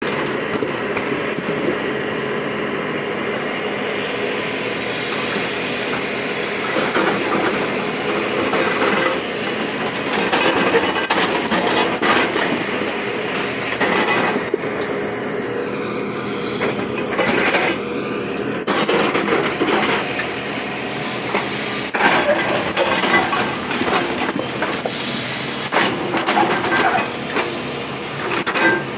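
Bulldozer diesel engine running steadily under load, with irregular cracking and crunching of rock being pushed and broken.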